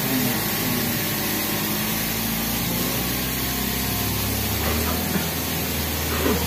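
Steady rushing of falling water from an artificial waterfall, over a low hum from the tour boat's motor. The deep part of the hum shifts about four and a half seconds in.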